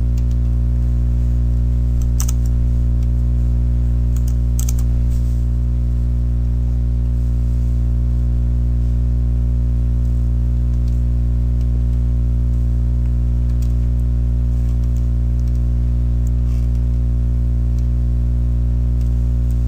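Steady electrical mains hum with a stack of overtones, unchanging throughout. Over it come a few faint clicks of a computer mouse and keyboard, a little cluster of them about two seconds in and again around four to five seconds.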